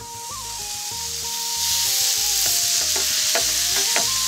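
Ground lamb and ground beef sizzling as they start to brown in a skillet with vegetables, the sizzle building over the first couple of seconds. Near the end a wooden spoon stirs the meat, knocking and scraping against the pan a few times.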